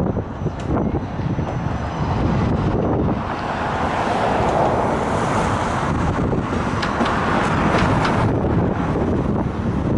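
Autorack freight cars rolling past, a steady rumble of steel wheels on the rails, swelling from about three seconds in, with a few sharp clicks near the end.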